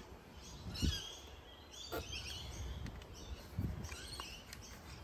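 Birds chirping in short calls, with a few soft low knocks and one sharp click.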